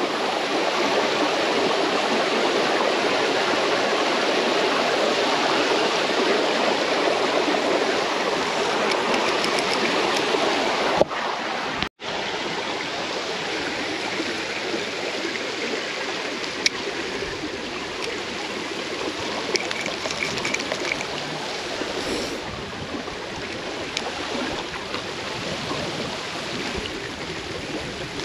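Water rushing steadily down a small ditch, with one brief cut-out about twelve seconds in.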